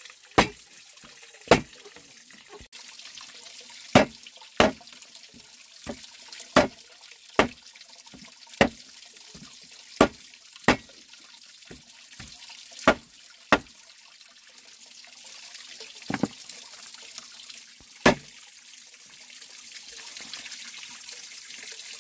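Water running and splashing, as at a tap or washing basin, with sharp knocks at irregular intervals of a second or two that stop a few seconds before the end.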